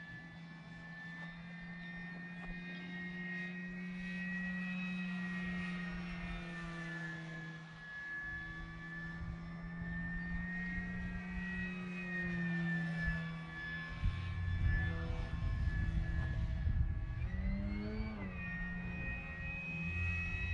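Electric motor and propeller of a Flex Innovations RV8 G2 60E radio-controlled plane whining steadily in flight, its pitch drifting up and down as it passes overhead. About three-quarters through, the pitch rises sharply as the throttle goes up. A low rumble joins in the second half.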